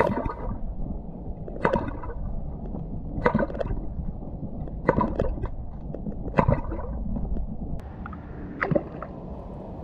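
Bomber Paradise Popper fishing cork being jerked across the water and heard through an underwater microphone: five sharp pops about every second and a half, loud underwater. The last pop, near the end, is heard from just above the surface.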